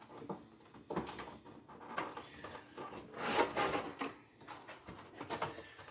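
Cardboard packaging being handled and pulled apart: irregular rustling, knocking and scraping of cardboard, with a louder rasping scrape about three seconds in.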